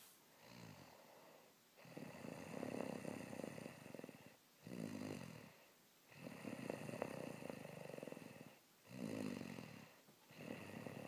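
A person snoring steadily. Each long snore lasts about two and a half seconds and is followed by a shorter breath of about a second, repeating about three times.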